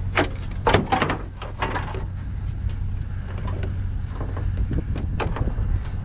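A vehicle engine running steadily with a low hum, with a few sharp knocks and clatter of metal being handled in the first two seconds and again about five seconds in.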